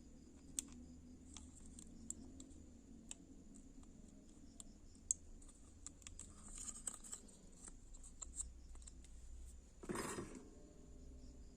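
Scattered small clicks and snips of hand work on the lamp's wiring and driver board, with a brief louder scrape or rustle about ten seconds in.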